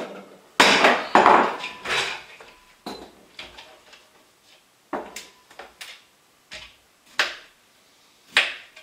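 Kitchen clatter: irregular sharp knocks and clanks of utensils and dishes on a countertop, a quick run of them in the first two seconds, then single knocks spaced out through the rest.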